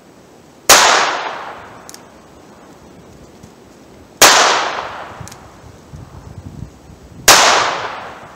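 Three shots from a North American Arms Mini five-shot revolver firing .22 Long Rifle, about three and a half and then three seconds apart, each sharp crack ringing out for about a second.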